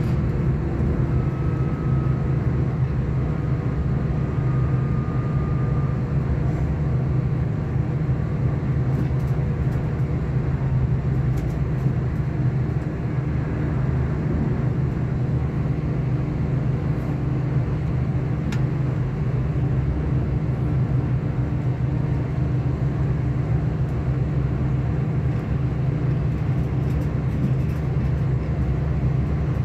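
Steady running noise inside a V/Line diesel passenger train moving at speed: a low, even drone, with a faint high tone that slowly falls in pitch over the first few seconds.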